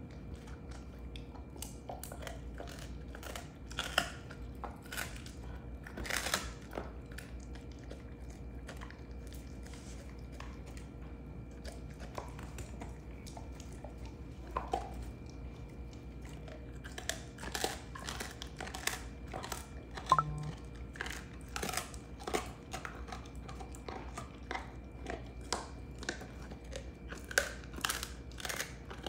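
A Belgian Malinois chewing a beef rib bone, with irregular sharp cracks and crunches as his teeth work the bone. The cracks come in uneven clusters, with a quieter stretch a little before the middle and the loudest crack about two-thirds in.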